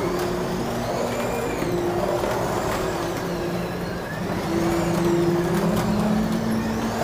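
Carrera Digital 1/24-scale slot cars running on the track. Their small electric motors make high whines that rise and fall over and over, with scattered sharp clicks.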